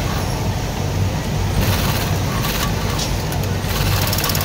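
Dürkopp 697 industrial sewing machine stitching in short bursts, the longest near the end, over a steady low hum.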